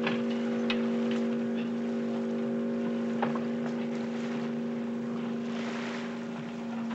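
A boat engine drones steadily at a constant pitch over wind and water noise, with two short knocks early on.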